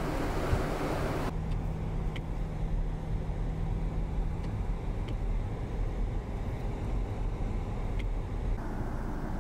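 Car driving, heard from inside the cabin: steady low engine and road rumble with a faint hum and a few light ticks. About a second in it replaces loud blowing wind noise.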